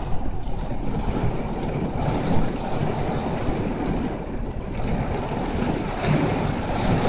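Wind-driven rain beating on a car, heard from inside the cabin as a steady rushing noise.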